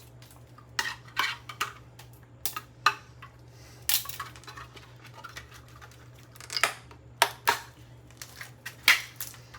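Irregular sharp clicks and clatter of the broken RCA clock radio's hard plastic and metal parts being handled and picked apart with scissors, a dozen or so knocks spaced unevenly, over a faint steady low hum.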